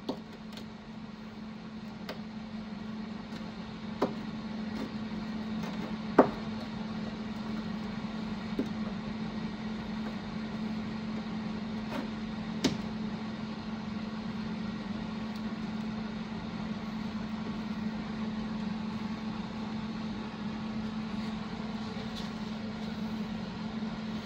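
A steady mechanical hum with a handful of sharp knocks or taps, the loudest about six seconds in.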